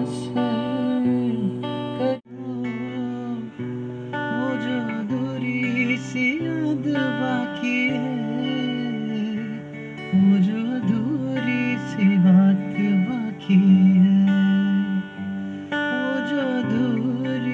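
Acoustic guitar strummed and picked in chords, with a man's voice singing a slow melody over it.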